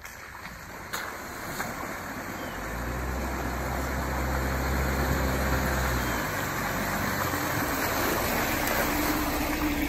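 Jeep Wrangler on the move: a steady rush of tyre and wind noise that builds over the first few seconds, with a low engine drone from about a quarter of the way in to just past halfway.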